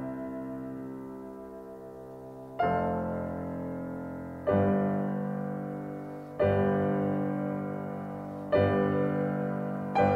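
Background piano music: chords struck about every two seconds, each ringing on and fading.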